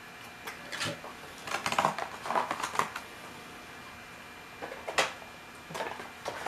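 Off-camera handling of small model-airliner packaging and parts: a run of light clicks and rustles from about one to three seconds in, then one sharp click about five seconds in and a softer one shortly after.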